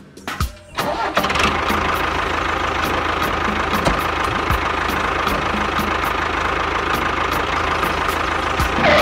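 Small motor of a miniature DIY tractor running steadily, with an even whine, as it drives over sand. It starts up about a second in.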